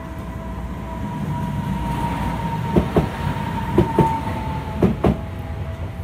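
A Tokyu Setagaya Line train running through a level crossing, its wheels clacking over a rail joint in three evenly spaced pairs, over a low rumble. The crossing's electronic warning bell rings throughout in a steady two-tone sound.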